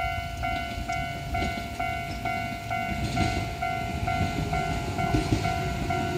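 Japanese level-crossing warning bell ringing, an electronic ding repeating about twice a second, while an Enshu Railway 1000-series electric train approaches with a low rumble that grows louder toward the end.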